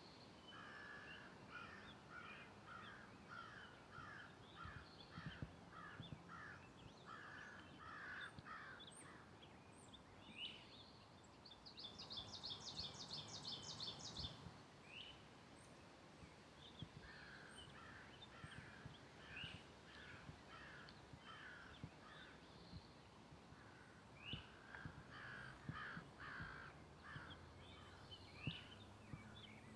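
Forest birds calling: one bird repeats a short harsh call in quick runs of about ten notes, three times over, and another gives a high buzzy trill about halfway through, with scattered chirps between. Faint footsteps on the trail underneath.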